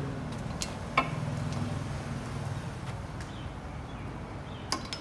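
Light metal clicks of valve guides being handled and set into an Isuzu 4BD1 diesel cylinder head, one sharper click about a second in and a few fainter ones, over a low steady hum.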